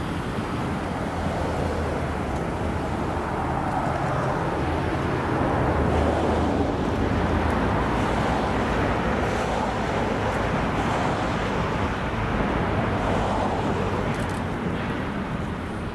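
EMD GP38-2 diesel locomotive's 16-cylinder two-stroke engine running under light load as the locomotive creeps forward coupled to covered hoppers: a steady low drone that swells slightly about six seconds in.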